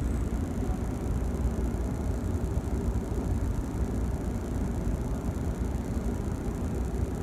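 Steady low rumble of a Washington Metro train passing alongside, heard through the window glass of a stopped passenger train car.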